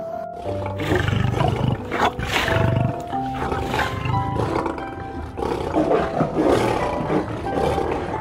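A large animal roaring several times in rough, low calls over background music.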